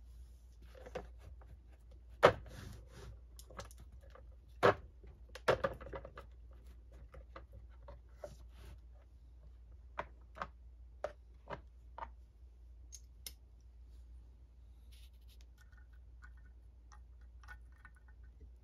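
Scattered metallic clicks and knocks of hand tools and small screws against a Ford alternator's housing and the workbench as screws are fitted into the brush holder. The loudest knock comes about two seconds in, with a quick run of five clicks about ten seconds in and faint light scratching near the end.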